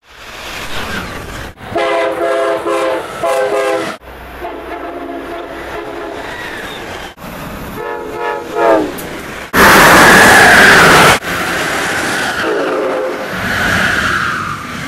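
A quick-cut series of passing Amtrak electric trains. First come several locomotive horn blasts in separate clips, the last dropping in pitch near its end. Then about a second and a half of loud rushing noise as a train passes close, and then the rumble of passing cars.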